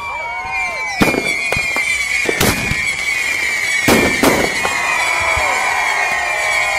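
Fireworks going off: four sharp bangs, the last two close together, over a long steady high-pitched whistle and several shorter whistles that arc and fall in pitch.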